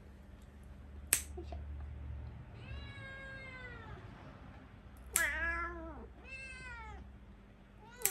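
A cat meowing three times, drawn-out meows that fall in pitch, with sharp snips of small cat nail clippers cutting claws about a second in, about five seconds in and again near the end.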